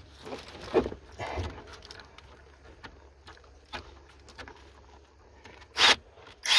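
Cordless drill-driver running in two short bursts near the end, the second longer with a high whine, snugging down the nut that holds a fuse box on its mount. Before that, faint clicks and rustle of hands handling the tool against the fuse box.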